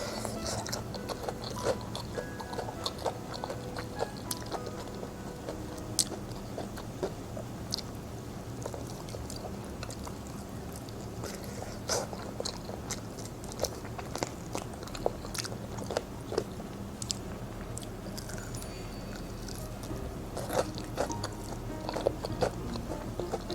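Close-miked chewing and biting of food, with many sharp crunchy clicks scattered throughout, over soft background music.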